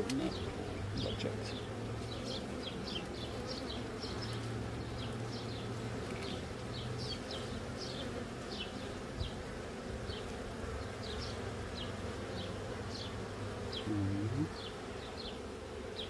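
A honeybee colony buzzing in an open hive box: a steady low hum of many bees. Short high chirps repeat over it, about one or two a second.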